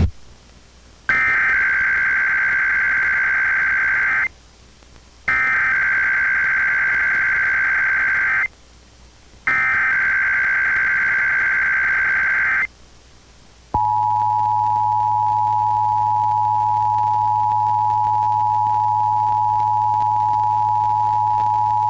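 Emergency Alert System SAME header: three bursts of screeching digital data, each about three seconds long and about a second apart. About fourteen seconds in comes the steady two-tone EAS attention signal, opening a Required Weekly Test.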